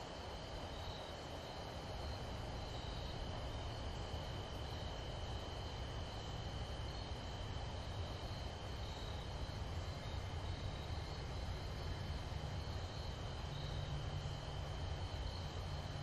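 Crickets or other insects calling in a steady, continuous high trill over a low outdoor rumble; a faint low hum joins near the end.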